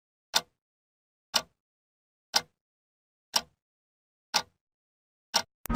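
Sharp, crisp ticks, one each second, with dead silence between them. A last quick tick comes just before music starts at the very end.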